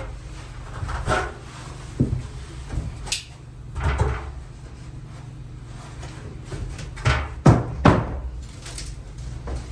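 Irregular knocks and bangs of demolition work, likely a cut pipe being pulled out: scattered thumps in the first half, then three loud bangs in quick succession near the end.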